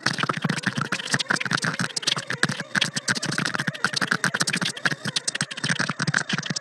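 Experimental electronic music made from processed voice: a dense, rapid, irregular stutter of very short chopped voice fragments, many per second, with no steady pitch.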